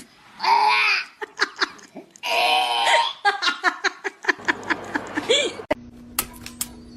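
A person laughing in bursts, breaking into a quick run of short laughs. About five and a half seconds in, it cuts off abruptly to a steady hum with light clicks.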